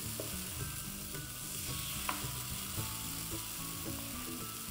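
Chocolate waffle batter sizzling faintly on the hot plates of an electric waffle maker as it is spooned on, with a few light clicks of the spoon. Faint background music runs underneath.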